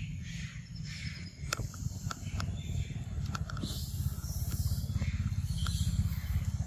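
Macaques eating ripe mango: scattered sharp, wet clicks and smacks of biting and chewing over a steady low rumble.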